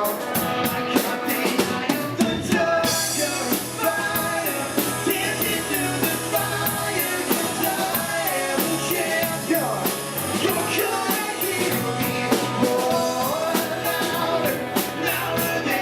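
Rock band music with singing over drums, bass and a steady run of cymbal hits. The drums and cymbals come in fuller about three seconds in.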